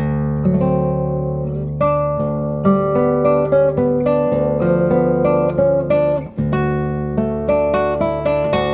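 Acoustic guitar playing, a run of plucked notes and chords over a sustained low bass note, with a brief break about six seconds in.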